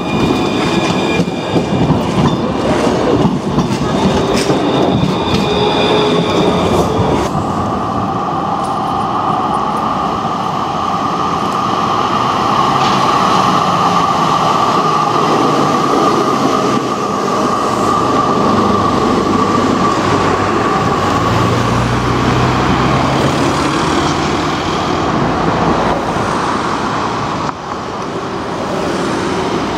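Electric trams on street track: a RandstadRail 4000-series tram pulling past close by with a steady high whine, then an HTM GTL tram running in with a steady higher-pitched tone over the rumble of wheels on rail. The whine gives way to the lower tone about seven seconds in.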